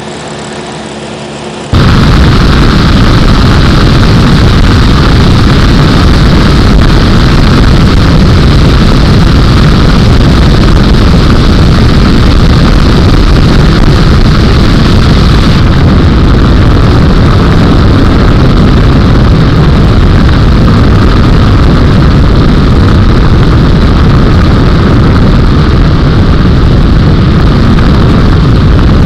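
Steady, very loud engine and propeller noise inside the cabin of a homebuilt Bushcaddy light aircraft in flight. It cuts in suddenly about two seconds in, after a quieter stretch with a few steady hums.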